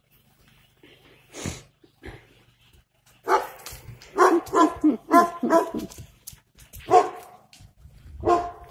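A dog barking in a run of short barks, starting about three seconds in, with a couple more spaced out near the end.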